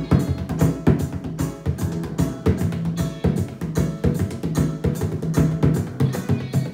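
Bodhrán struck with a tipper in a fast, steady rhythm, played along with a recorded song's instrumental intro, whose held notes sound under the drum strokes.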